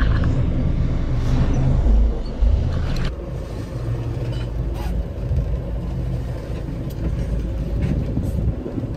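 Boat engine running steadily, a low rumble, with a few faint clicks over it.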